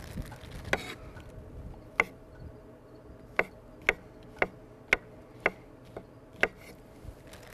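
Kitchen knife slicing mushrooms on a wooden cutting board, the blade knocking on the board in about nine sharp taps, a couple of them spaced out early and then roughly two a second through the middle.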